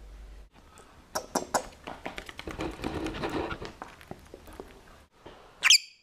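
Masked lovebird making a few seconds of clicks and short squeaky chatter, then one loud, shrill chirp near the end.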